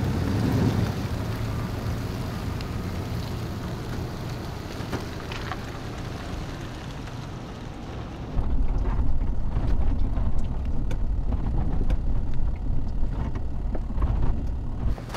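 First-generation Toyota Tundra pickup carrying a slide-in camper pulling away, its engine and tyres fading as it goes. About eight seconds in, the sound changes to inside the cab on a dirt road: a louder, steady low rumble of engine and tyres with small rattles and knocks.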